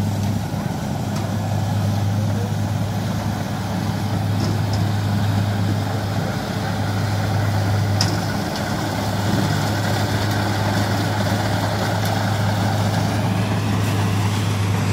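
Kubota DC70 Plus combine harvester's diesel engine running steadily under load while cutting rice, a constant low hum.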